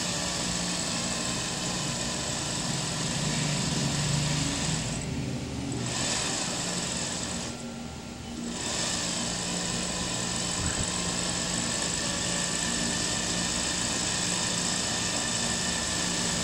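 Industrial sewing machine running steadily as it stitches loose hair into a weft, with a low motor hum beneath the stitching. The stitching stops briefly twice, about five and eight seconds in, then carries on.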